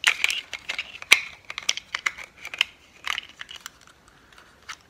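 Plastic clicks and scraping from a Vivitar VPT2457 tripod's removable quick-release plate being handled and fitted back into its spring-loaded clamp: a quick run of small clicks for about three seconds.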